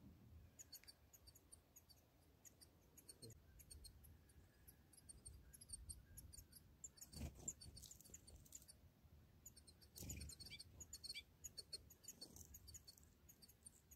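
Faint high-pitched twittering of small songbirds, short quick chirps scattered through, with two soft low rumbles, one about halfway and one about two-thirds through.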